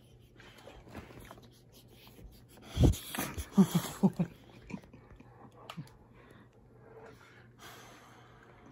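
A dog sniffing and breathing right against the microphone: a loud puff of breath about three seconds in, then a quick run of short, pitched huffs, with faint snuffling the rest of the time.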